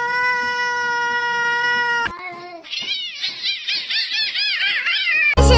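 A cat's long, steady yowl, cut off sharply about two seconds in, followed by a run of short meows, each rising and falling in pitch, about four a second. Music comes in just at the end.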